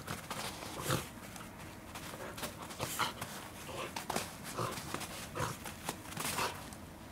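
Welsh corgi playing with a tennis ball on artificial turf: a string of short, irregular sounds from the dog at play, about one or two a second.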